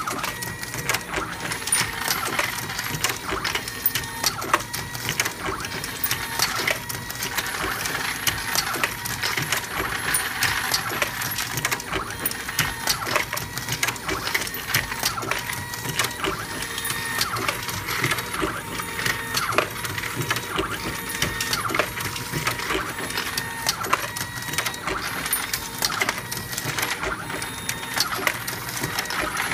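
AmmoBot MK1 motorized progressive reloading press cycling continuously while loading 9mm Luger cartridges: a steady mechanical clatter full of sharp metallic clicks and clinks.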